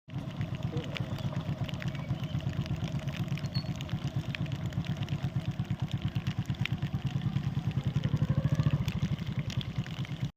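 An engine running with a fast, even pulsing, growing louder about eight seconds in.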